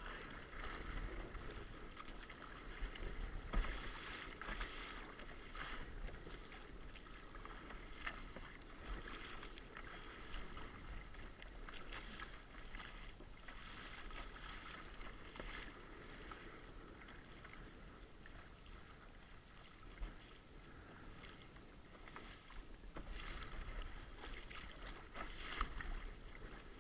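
Kayak paddle strokes splashing and water slapping against a plastic sit-on-top kayak's hull in choppy sea, in a loose rhythm of a stroke every second or two.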